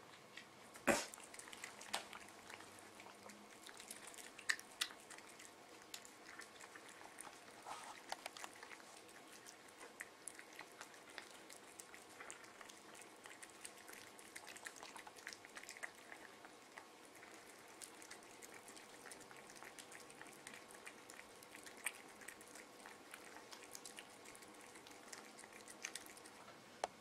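Cats eating wet cat food from glass bowls: faint wet licking and chewing with irregular small clicks of tongue and teeth against the glass. One sharper click comes about a second in.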